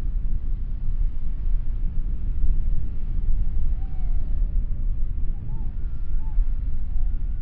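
Wind buffeting the microphone: a steady low rumble. A few faint short high calls come through in the middle.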